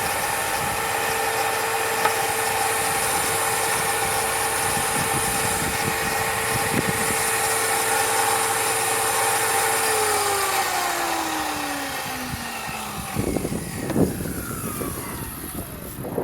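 Electric power tool motor running at a steady high whine, then switched off about ten seconds in and winding down with a falling pitch. A few knocks follow near the end.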